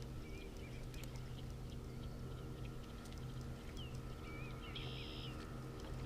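Small birds chirping and twittering over a steady low mechanical hum. There is a brief burst of busier chirping near the end.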